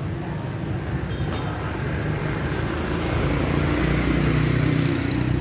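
A motor vehicle's engine running steadily, growing louder over the second half and easing slightly near the end.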